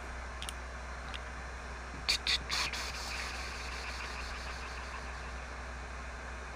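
Steady hiss with a low hum from the stream's microphone line, with two faint clicks early and a quick cluster of sharp clicks about two seconds in.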